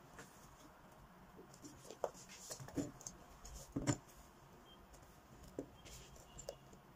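Faint handling sounds of chunky platform loafers being slid and set down on a tabletop: scattered soft knocks and rustles, the loudest about four seconds in.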